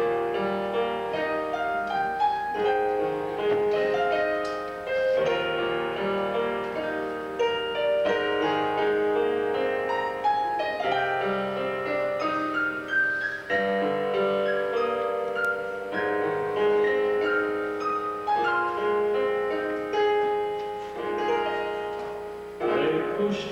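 Piano playing the introduction to a gospel song: a flowing run of chords and melody that leads into the singing.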